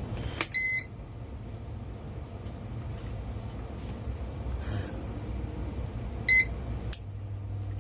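Universal air-conditioner control board powering up: its buzzer beeps about half a second in and again, more briefly, after six seconds. A relay click follows near the end, and a steady low hum starts as the fan motor load is switched on.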